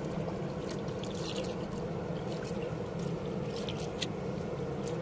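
Steady rush of river water with light trickling and lapping around a small wooden boat, with a few faint ticks.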